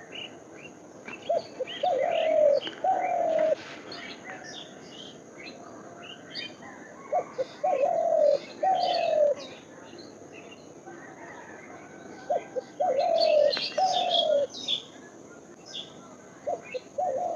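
A dove cooing in a repeated phrase, a few short notes then two longer falling coos, about every five seconds, with small birds chirping throughout.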